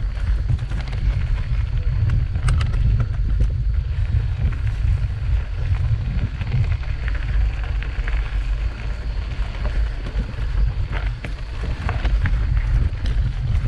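Wind and riding vibration rumbling on an action camera's microphone as a mountain bike climbs a rocky dirt trail, with scattered clicks and rattles from the tyres and bike over loose stones.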